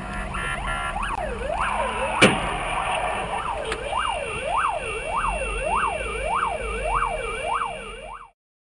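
Emergency-vehicle siren wailing rapidly up and down, about one and a half sweeps a second, over a steady low rumble of traffic. A single sharp click about two seconds in. The sound cuts off suddenly near the end.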